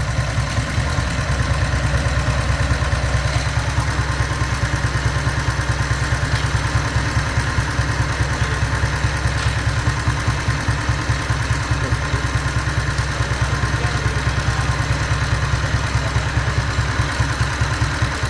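Single-cylinder diesel engine of a converted Royal Enfield Bullet motorcycle idling steadily with an even, rapid beat after being throttled down.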